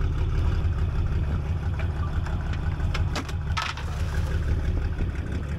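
An engine on a fishing boat running steadily at idle, a low, even throb. A few short clicks come about three seconds in.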